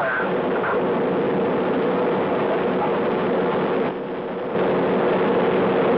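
Steady hiss with a constant low hum, the background noise of the recording's audio channel. It dips briefly for about half a second around four seconds in.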